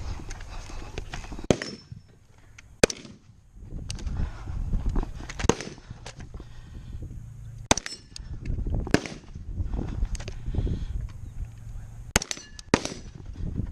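Several single gunshots, spaced irregularly from about a second to a few seconds apart, with rustling, knocking handling noise and movement between shots as the shooter switches ports on a barricade while engaging steel and clay targets.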